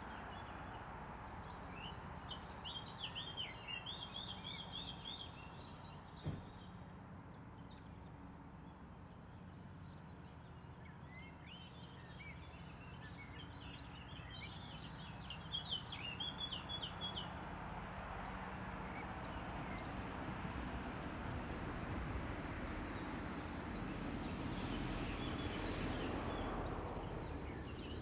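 Birds chirping in quick, high trills, in two spells a few seconds in and again around the middle, over steady outdoor background noise that grows a little louder near the end.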